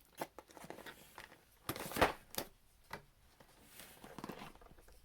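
A box and its packaging being opened and handled: scattered clicks and rustles, with a louder scrape or knock about two seconds in.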